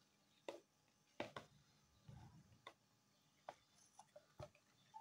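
A spoon clicking and scraping against a plastic tub as green chutney is stirred into yogurt: scattered sharp clicks, about six, at uneven intervals.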